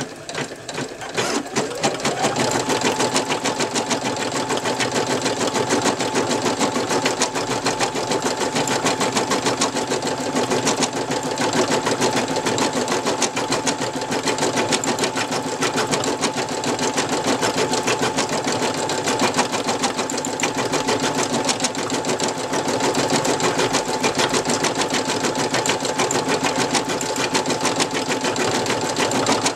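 Brother NV2600 embroidery machine stitching an embroidery design. It is briefly quieter right at the start, then the motor speeds up with a rising whine, about two seconds in, and settles into fast, even stitching over a steady hum.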